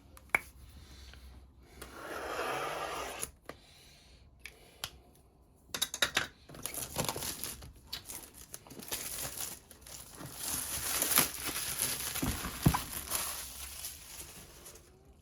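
Diamond painting kit packaging being torn open and crinkled by hand. A short rustle comes about two seconds in, then steady tearing and crinkling from about six seconds in, loudest around eleven seconds.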